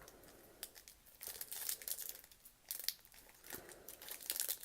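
A 2018-19 NBA Hoops trading-card pack wrapper crinkling and tearing in irregular bursts as it is opened by hand.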